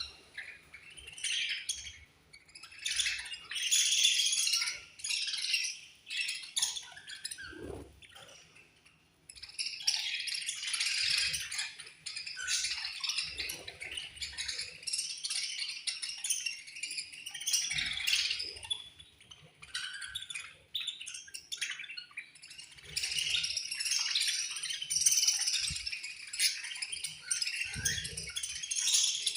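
A colony of budgerigars chirping and chattering, many high calls overlapping, with a brief lull about a quarter of the way through.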